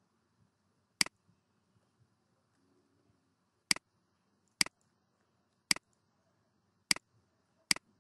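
A computer mouse button clicking six times at uneven intervals, each a sharp short click, with faint background noise between.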